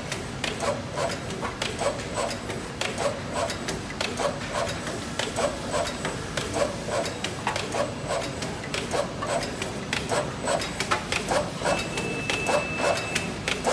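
Zhengrun ATJ400 automatic box former and corner taping machine running, its mechanism cycling in an even, repeating clatter of short strokes, a few a second. A brief high steady tone sounds near the end.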